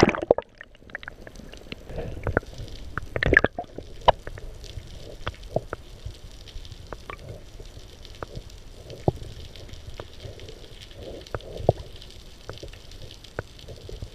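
Water heard through a camera held under the surface: a muffled low rumble with scattered sharp clicks and pops.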